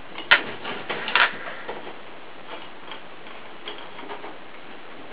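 Light clicks and taps of metal pipe fittings being handled on a wooden workbench: one sharp click shortly after the start, a quick cluster of taps about a second in, then a few faint ticks.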